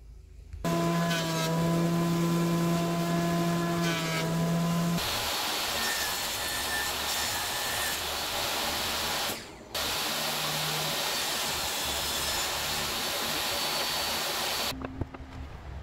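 Table saw running and cutting an end-grain teak board. A steady motor hum comes first, then from about five seconds in a loud, even rushing noise as the blade goes through the wood. It breaks off briefly near the middle, resumes, and stops about a second before the end.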